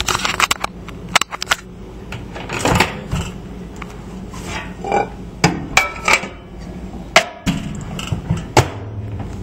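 Handling clatter: a dozen or so irregular sharp knocks and clicks as a bar of soap is put into a microwave oven and the oven is shut.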